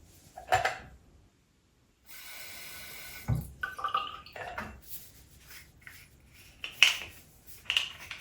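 Kitchen handling sounds: a knock, a second-long rush like running water, then clinks of dishes and cutlery, the two sharpest near the end.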